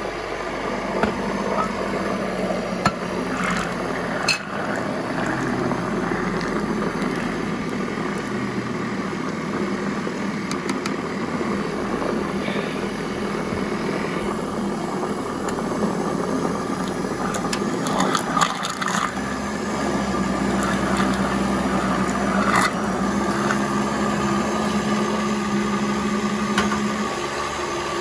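Countertop blender motor running steadily, churning thick red chili sauce in a glass jar, with a few light clicks. Its hum shifts a little about two-thirds of the way in.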